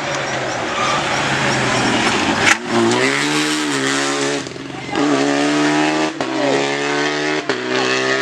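Rally car engine at full throttle, accelerating through the gears: the pitch climbs, then drops at each upshift, three times in the second half. A sharp crack comes about two and a half seconds in.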